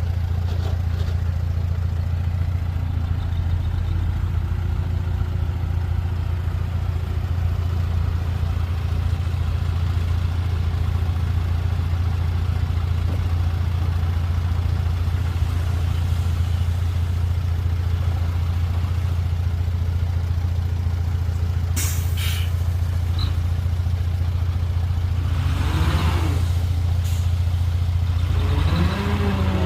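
Steady low drone of a running vehicle engine, with a short sharp click about 22 seconds in and brief rising-and-falling tones near the end.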